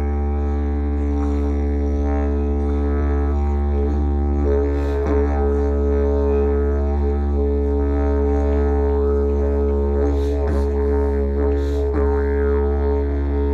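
Yidaki (didgeridoo) playing a steady, unbroken low drone with shifting overtones. Swooping accents come about five, ten and twelve seconds in.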